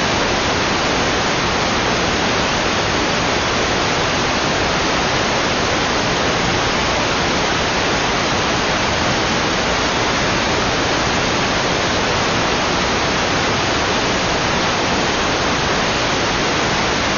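Loud, steady static hiss in the audio signal, unchanging throughout.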